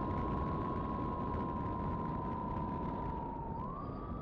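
Twin electric motors and propellers of an Eachine Airloader RC plane whining at two close pitches that beat against each other, over a steady rush of air. The whine sags slightly, then rises about three and a half seconds in.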